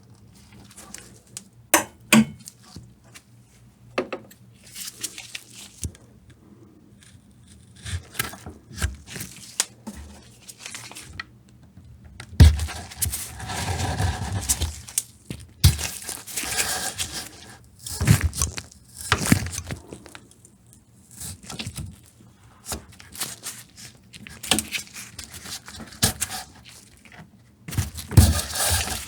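Hand leatherworking on a slim leather wallet: irregular scraping, rubbing and tearing-like rasps of leather and tools, broken by sharp taps and clicks.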